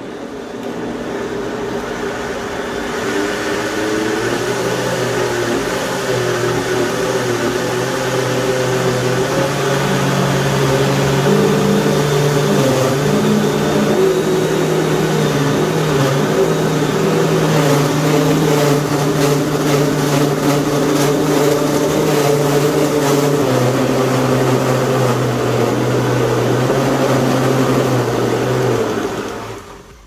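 Oster 1400 W blender motor running, blending a thick cassava cake batter. Its pitch steps up about a third of the way in and drops again later on, and the motor cuts off just before the end.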